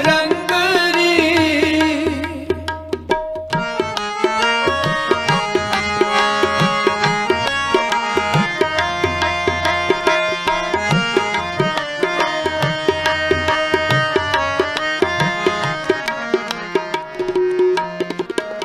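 Sikh kirtan instrumental interlude: a held, wavering sung note fades in the first couple of seconds, then tabla plays steady rhythmic strokes with sliding bass tones under a quick harmonium melody.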